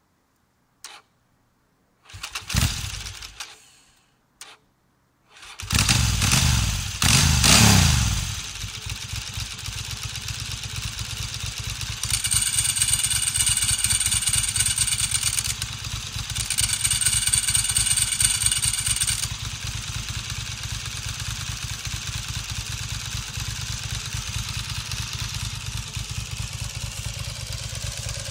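Ducati motorcycle engine being started: after a short first attempt it catches about five seconds in, is revved twice and settles into idle. It idles with the clattering rattle of its dry clutch, running with the clutch cover open, a new pressure plate and different springs. Twice the idle turns louder and brighter for about three seconds.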